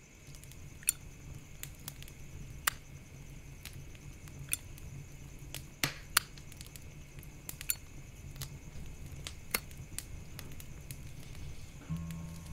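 Flip-top metal lighter being worked: a dozen or so sharp metallic clicks and clinks at uneven intervals as its lid is snapped and its wheel struck, until it lights. A low steady hum lies underneath, and music comes in near the end.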